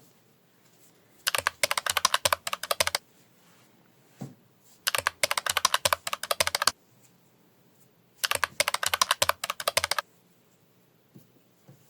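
Rapid clicking taps in three bursts of under two seconds each, with short pauses between.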